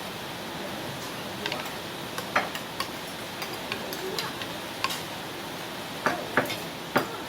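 Spoons and forks clicking and clinking against plates and soup bowls as people eat, a handful of separate sharp taps over a steady background hiss.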